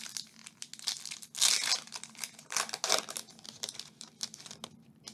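Plastic-foil wrapper of a Topps Chrome baseball card pack being torn open and crinkled by hand, in irregular bursts that are loudest about a second and a half in and again about three seconds in, then die away near the end.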